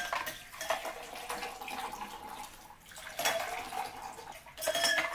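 Water being poured from a pitcher into drinking glasses, a steady pouring splash with a faint ringing tone from the filling glass, broken by short pauses about three seconds in and again near the end as the pour moves from glass to glass.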